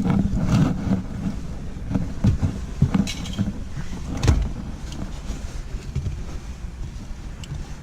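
Scattered clicks and knocks of hard plastic parts being handled and pried apart, the loudest about four seconds in, over a low rumble that fades.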